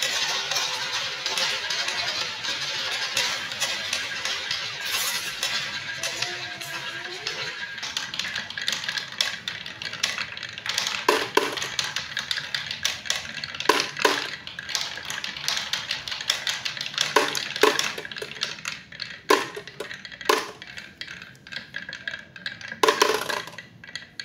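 Glass marbles rolling down a wooden wavy-groove slope track, a dense continuous rattle. After about ten seconds it thins to single sharp clacks as marbles run down one by one and drop into a clear plastic airplane-shaped container of marbles.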